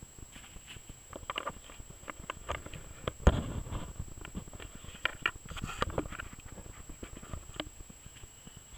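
Close handling and movement noise: scattered clicks, knocks and rustles, with one sharp knock a little over three seconds in.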